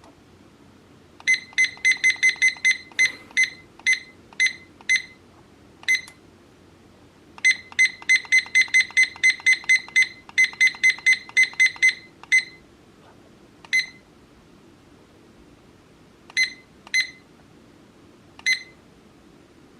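VZUO digital weather clock beeping: short, identical high-pitched electronic beeps, one per button press while the clock is being set. They come in two quick runs of about five a second, one early and a longer one in the middle, with single beeps between and after.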